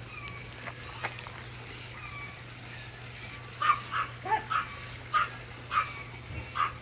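A run of short animal calls, about two a second, starting about halfway through, after a few fainter chirps.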